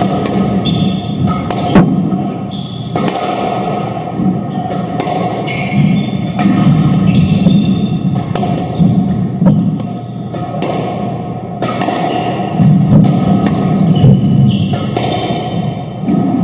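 Squash ball struck by racquets and smacking off the court walls during a doubles rally: a string of sharp hits at irregular intervals, each echoing in the court.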